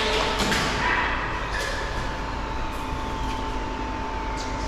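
Steady hum and hiss of a large warehouse hall, with one constant tone and a few faint, distant clacks.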